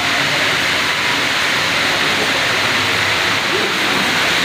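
Steady, loud hiss from a street-food stall's cooking station, with steam rising off its pots of simmering curry, and faint voices underneath.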